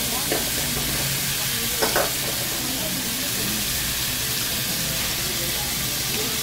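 Lamb and vegetables sizzling on a jingisukan dome grill pan, a steady frying hiss, with a short pair of clicks about two seconds in.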